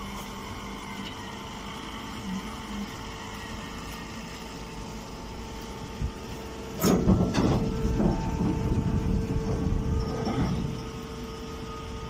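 Electric hydraulic straw baling-and-bagging press running with a steady hum. About seven seconds in it turns louder, with clattering and a stronger hum for about three seconds as a compressed bale is pushed out into the sack.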